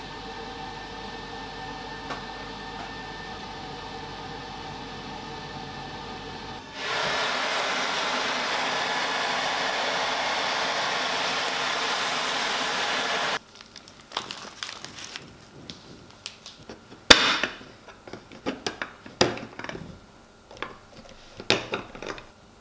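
A steady hum, then a louder, even rushing noise that cuts off suddenly a little past halfway. After that, a large kitchen knife chops dark chocolate on a plastic cutting board in irregular sharp knocks and clicks.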